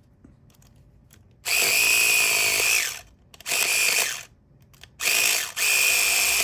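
Battery-powered electric pumpkin-carving saw rigged as a lock pick, buzzing in four on-off bursts at a steady high pitch, the first starting about a second and a half in and lasting longest.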